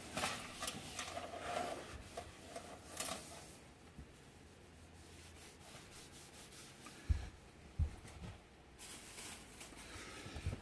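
Clorox disinfecting wipe being rubbed back and forth over a surface. The scratchy wiping is strongest in the first few seconds, dies down, then picks up again near the end, with two soft low knocks about seven seconds in.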